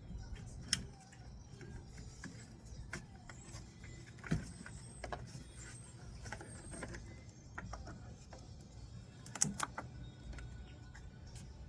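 Scattered clicks, taps and knocks of parts and tools being handled during reassembly, with a few louder knocks spread through.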